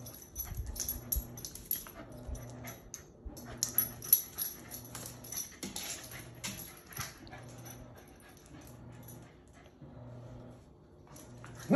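A small dog's claws clicking and scrabbling on a ceramic tile floor as it runs and spins, in quick irregular runs of clicks that thin out for a few seconds near the end.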